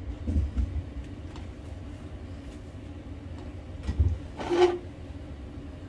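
Stirring in a pot of thickening beef pares broth over a steady low hum. There are a few soft knocks of the utensil against the pot, and one short scrape about four and a half seconds in.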